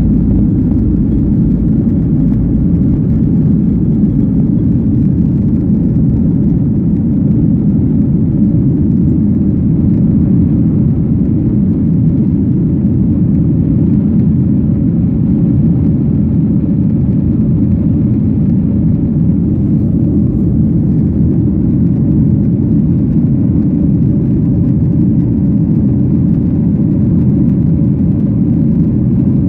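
Cabin noise inside a Boeing 737-800 climbing just after takeoff: its CFM56-7B jet engines at high thrust, heard as a loud, steady deep rumble with air rushing past the fuselage.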